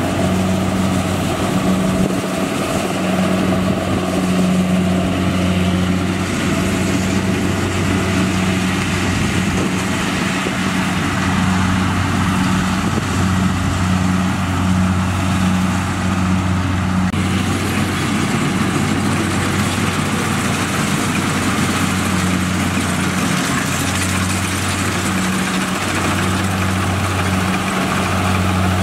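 Kubota rice combine harvester's diesel engine running steadily with a constant low hum while it cuts and threshes rice. The sound turns brighter and noisier about two-thirds of the way through.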